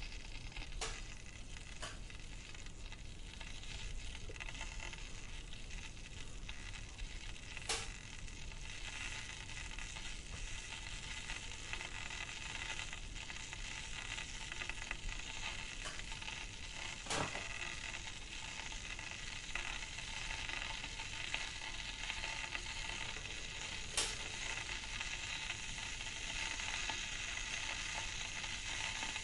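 Liquid boiling: a steady bubbling hiss with a few sharper pops scattered through it.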